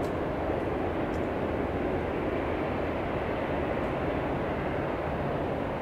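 Boeing 787-10 Dreamliner's jet engines at low taxi power, a steady, even rushing hum as the airliner rolls along the taxiway.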